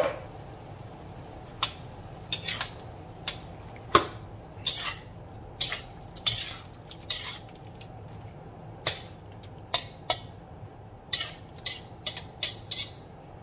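Slotted metal spatula scraping and clinking against a stainless steel wok while stirring a wet ground beef and tomato mixture. The sharp, irregular clinks and scrapes come about once or twice a second.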